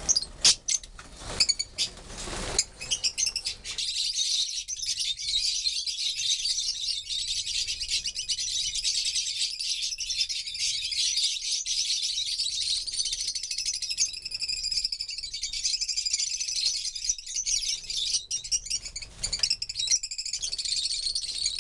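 A flock of Fischer's lovebirds chattering in an aviary: dense, continuous high-pitched chirping. A few sharp clicks sound in the first couple of seconds.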